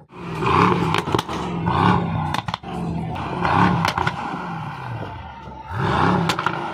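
Brabus-tuned Mercedes-AMG E63 (B700) twin-turbo V8 being revved in repeated short blips, each rising and falling in pitch about once a second, with sharp cracks from the exhaust between some of them.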